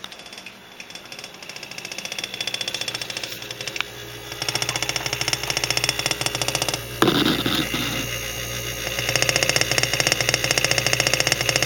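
Refrigerator giving a rapid, clacking rattle over a low running hum, which the owner takes for the compressor. The rattle builds over the first few seconds, with a sudden louder clatter about seven seconds in.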